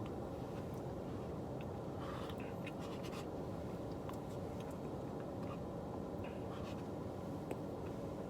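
Faint scraping and light clicks of a spoon digging in an ice-cream cup, over a steady low hum.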